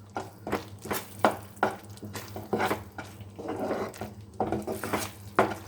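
A spoon stirring a thick white sauce in a pan, scraping and clinking against the pan in quick, irregular strokes, about two to three a second.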